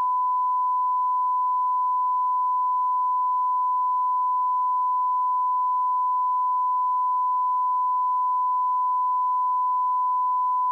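A steady, unbroken 1 kHz sine-wave test tone, recorded through a Behringer X32 mic preamp as a −20 dB RMS level reference.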